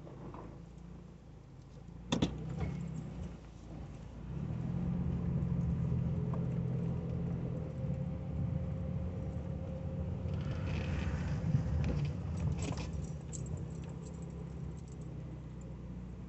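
A 1985 Cadillac Cimarron's engine heard from inside the cabin while driving, its low hum growing louder about four seconds in as the car pulls away and easing off near the end. There is a sharp click about two seconds in and a few more clicks later on.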